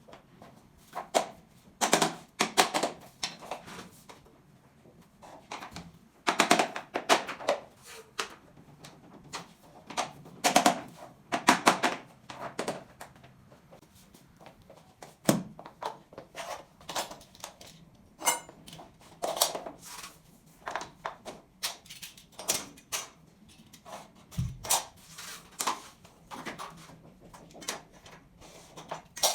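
Irregular knocks, clacks and taps of SPC stone-plastic floor planks being handled and fitted during installation, coming in short bursts with brief pauses.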